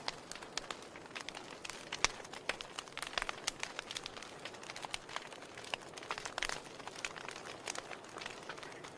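Wood fire burning in a fireplace, crackling with irregular sharp pops and snaps over a soft steady hiss; the loudest pop comes about two seconds in.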